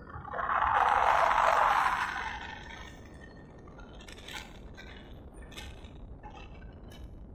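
Oncoming motorbikes passing close by: a rush of noise swells and fades over about two seconds near the start, followed by a low, steady ride noise.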